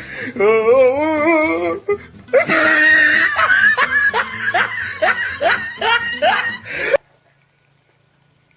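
Loud, exaggerated laughter: a wavering cackle, then a run of short rising whoops about twice a second, cutting off abruptly about seven seconds in.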